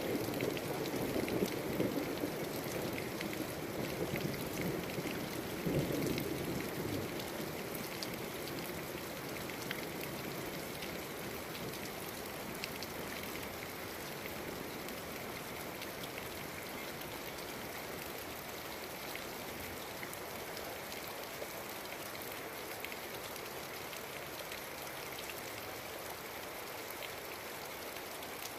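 Steady rain falling, with many single drops striking a surface close to the microphone. A louder low rumble in the first several seconds fades away.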